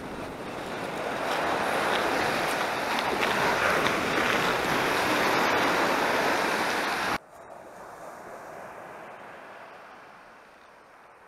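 Small sea waves breaking and washing onto a sandy beach, with wind on the microphone. About seven seconds in the sound cuts abruptly to a quieter wash of surf.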